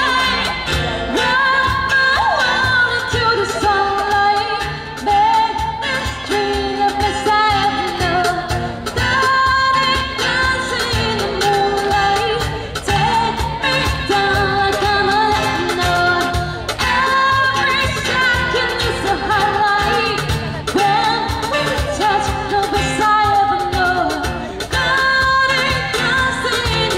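A woman singing a pop ballad through a PA system with instrumental accompaniment and a steady beat.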